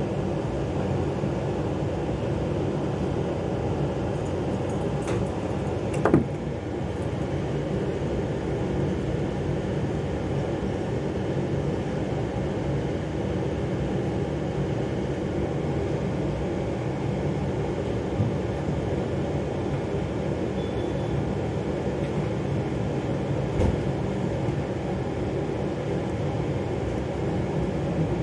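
Steady low rumbling background noise with no clear source, broken by a sharp knock about six seconds in and a couple of fainter clicks later.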